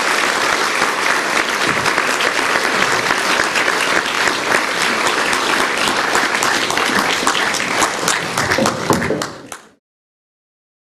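Audience applauding steadily, thinning out and then cutting off suddenly near the end.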